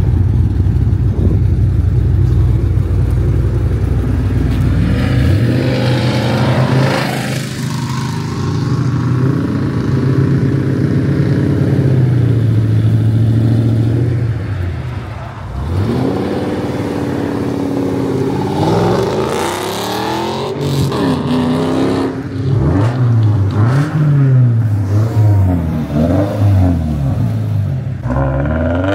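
Car engines revving hard, the pitch climbing and dropping again and again. A deep rumble fills the first few seconds, and the revs come thick and fast in the second half.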